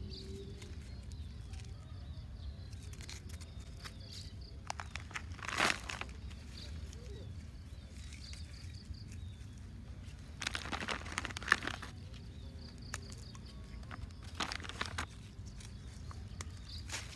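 Plastic bread bag crinkling and rustling in a few short bursts, about five, eleven and fifteen seconds in, as bread bait is taken out and handled, over a low steady outdoor background.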